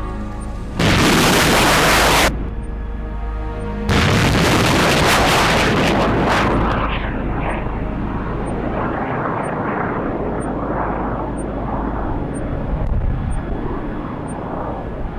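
Roland surface-to-air missile fired from an AMX-30 Roland launcher: a loud blast of rocket exhaust that cuts off abruptly after about a second and a half, then a second loud launch blast about four seconds in that fades into a long, wavering rumble as the missile flies away.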